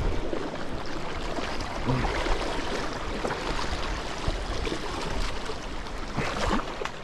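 Sea water washing and swirling over shoreline rocks, a steady rushing wash with small splashes.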